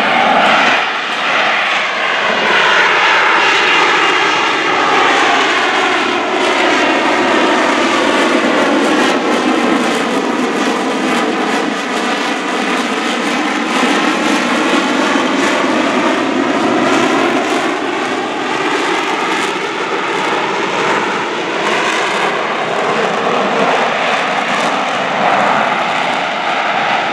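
AV-8B Harrier II's Rolls-Royce Pegasus vectored-thrust turbofan running at hover power, a loud, steady jet roar. Its tone shifts slowly down and back up as the jet holds and drifts in the hover.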